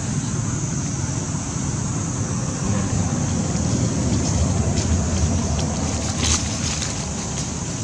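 Wind rumbling on the microphone outdoors, a steady low noise, with a constant high-pitched hiss above it and a few faint clicks in the second half.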